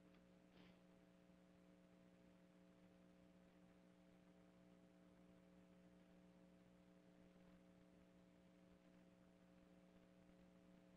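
Near silence, with a faint steady electrical hum made of several fixed tones on the audio line.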